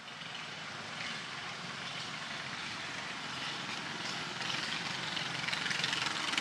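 An engine running with a steady drone over outdoor background noise, growing slightly louder near the end.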